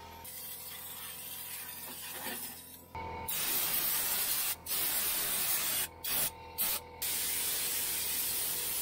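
Air-powered undercoating spray gun spraying Surface Shield undercoating onto a truck frame: a loud, even hiss that starts about three seconds in, stops briefly four times, then runs on steadily.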